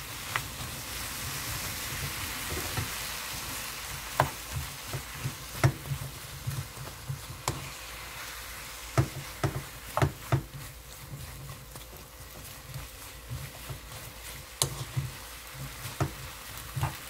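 Onions and shiitake mushrooms sizzling steadily as they are stir-fried with pork and chili paste in a nonstick pan. A wooden spoon stirs them, knocking against the pan now and then, in a cluster of quick knocks about halfway through.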